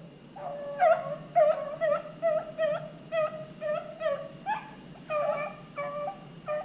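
A pack of beagles baying in a quick run of short, pitched yelps, about two or three a second, the sound of hounds running a rabbit's track.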